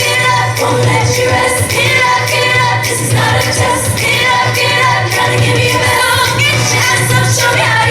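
Loud pop music with singing over a steady bass line.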